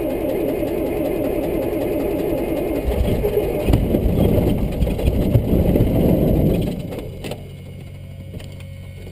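Cessna's piston engine running just after starting, steady and loud in the cabin. About seven seconds in it drops sharply to a much quieter, steady hum.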